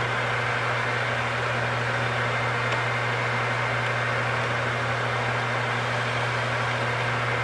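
Metal lathe running steadily, its spindle spinning a square workpiece in a four-jaw chuck: a constant low hum with an even whirring rush over it.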